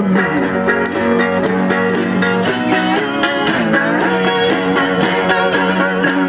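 Electric guitar played live: a quick, twangy run of plucked notes over a held low note.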